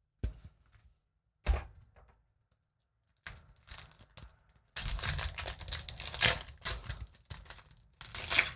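Two light knocks, then a Magic: The Gathering booster pack's foil wrapper crinkling and being torn open, from about three seconds in.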